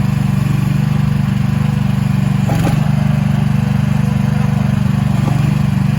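Agrotk YM10 mini excavator's 420 cc four-stroke gas engine running at a steady speed. There is a short knock about halfway through.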